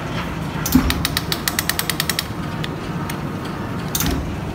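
Rapid mechanical clicking, about ten clicks a second for roughly a second and a half, then one more click near the end, over a steady low machine hum.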